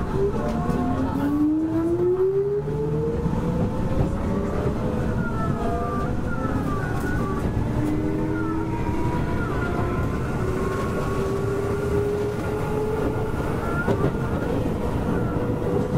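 Keisei 3400 series electric train running, its traction motors whining in a tone that climbs steadily over the first few seconds as the train accelerates and then keeps rising more slowly, over a constant rumble of wheels on rail.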